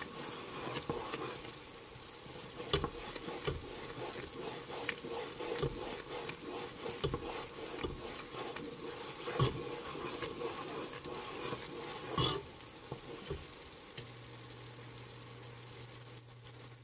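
Sugar syrup boiling in a pot near 233°F, close to the soft-ball stage, while a wooden spoon stirs it, with frequent small clicks and knocks of the spoon against the pot. The bubbling and stirring die down about twelve seconds in, and a low steady hum starts shortly after.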